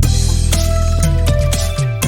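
Background music: an upbeat track with held melody notes over a steady bass and regular percussion.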